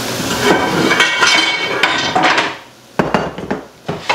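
Pots and pans clattering and clanking as a cooking pot is taken out of a kitchen cabinet: a run of metal clatter with some ringing, then a few sharp knocks in the last second and a half.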